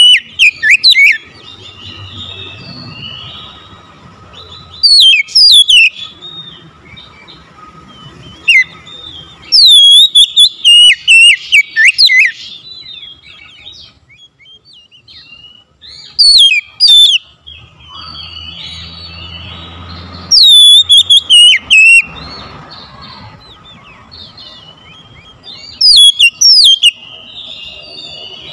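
Oriental magpie-robin singing loud bursts of sweeping whistled phrases, about six bursts a few seconds apart, with softer notes between them.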